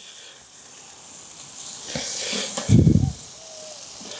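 Lamb skewers sizzling over hot charcoal in a kettle grill, a steady hiss that thickens about two seconds in. A short low thump comes at about three seconds.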